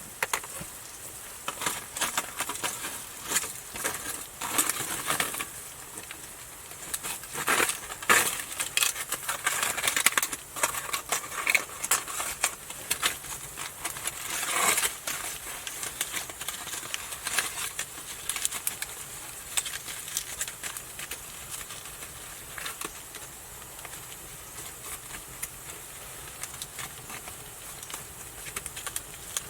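Clicks, rattles and scrapes of camp cooking gear being handled: seasoning containers and a utensil working over a pan of potatoes. They come thick in the first half and grow sparse later, over a faint steady hiss.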